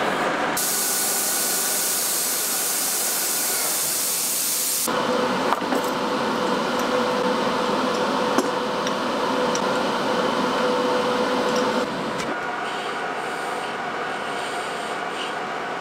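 Metal lathe work in short edits: a loud steady hiss for about four seconds, then steady machine noise with a held whine and two sharp metallic knocks while the workpiece is set in the chuck. From about twelve seconds in, the lathe runs a little quieter as the tool faces off the end of the metal die holder.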